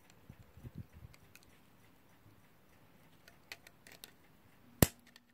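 Small metallic clicks and scrapes of needle-nose pliers gripping and working a brass bearing into a clock's metal movement frame, with one sharp, louder click near the end.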